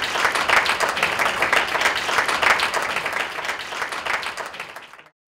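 Audience applauding, a dense steady patter of many hands clapping that fades away over the last second and a half.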